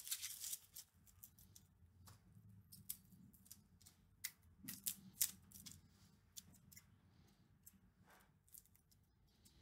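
Faint, irregular small crisp clicks and rustles of a paring knife peeling the papery skin off garlic cloves, over a low steady hum.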